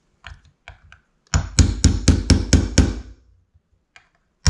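Hammer driving roll pins into the trigger-valve housing of a Porter-Cable DA250C angled finish nailer: a few light taps, then a quick run of about seven sharp metal-on-metal blows, roughly four a second. After a short pause a second run of blows begins at the very end.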